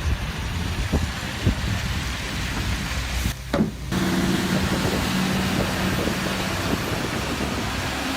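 Heavy machinery running with a dense, steady rumbling noise. It drops out briefly about three and a half seconds in, then carries on with a steady low hum for a few seconds.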